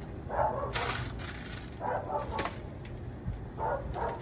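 Dogs barking in three short bouts, a couple of barks each, over a steady low hum.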